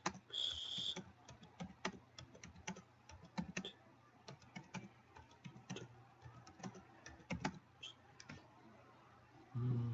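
Computer keyboard being typed on in irregular runs of keystrokes, with a brief hiss about half a second in.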